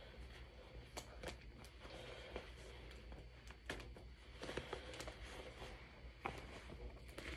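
Denim jeans being handled and folded: faint fabric rustling with scattered light clicks and taps, over a steady low hum.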